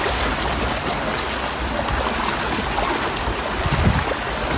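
Steady rushing of a shallow river flowing around the wader.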